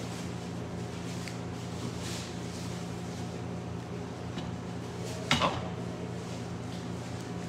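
Spatula scraping and tapping against a black frying pan as beef chunks and tomatoes are stirred, with a loud double clank about five seconds in, over a steady low hum.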